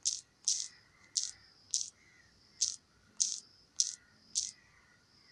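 Smartphone touchscreen keyboard taps while a password is typed: eight short, sharp ticks at an uneven pace of about one every half second.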